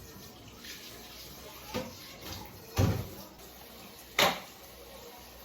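Three short knocks, the second and third the loudest, over a steady low hiss.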